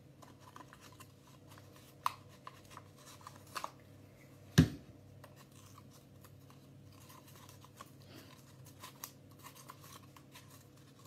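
Paper rustling and small clicks as blue paper tabs are glued and pressed onto a cardboard toilet roll, with one sharp knock about four and a half seconds in as a glue stick is set down on the wooden table.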